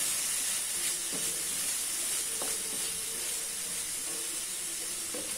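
Chopped French beans and onions sizzling in oil in a metal kadai, stirred with a wooden spatula that scrapes lightly against the pan a few times.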